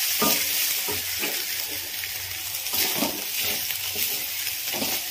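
Chopped onions and green chillies sizzling in hot oil in a metal kadai, with a spatula scraping and stirring them against the pan now and then.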